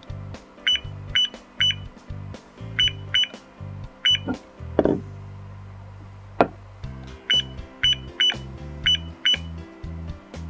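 Short high beeps from a digital alarm clock's push buttons, about a dozen in quick runs of two or three, as its time and sleep settings are stepped through. Background music with a steady low beat plays under them.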